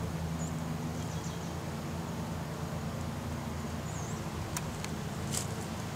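A steady, low machine hum, with a few faint high chirps and two sharp clicks in the second half.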